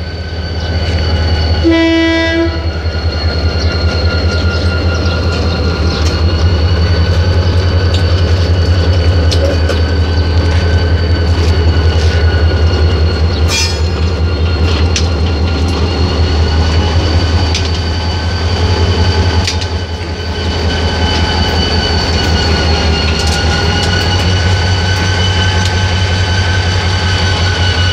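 Diesel locomotive engine running close by, a loud steady low drone with a steady high whine above it. A short horn blast comes about two seconds in.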